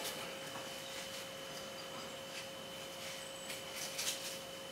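Faint scattered rustles and rubs of thread being wound round fibreglass wool to bind it onto a neck wire, over a steady faint hum with a high whine.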